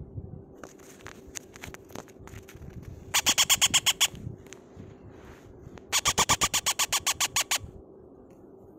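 A nearly featherless parrot chick giving begging calls: two runs of rapid squeaky chirps, about eight a second, a short run about three seconds in and a longer one about six seconds in. Faint crackles of shredded-newspaper bedding come as the chick moves.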